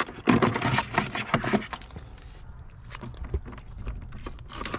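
Rattling and scraping of a wire crab net and metal crab tongs as a blue crab is picked out, dense for the first two seconds, then a few light clicks and one sharp click near the end.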